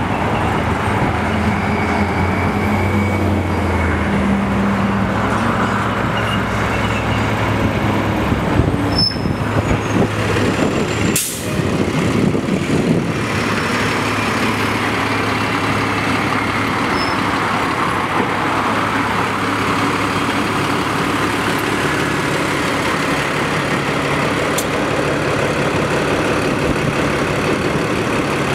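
A city transit bus running: first a low engine hum with street traffic as the bus comes along the road, then, after a sudden break about 11 seconds in, a steady running drone from a bus standing at the curb.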